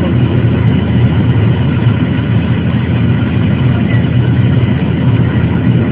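Airliner cabin noise: the steady, loud low drone of the jet engines and airflow heard from inside the passenger cabin.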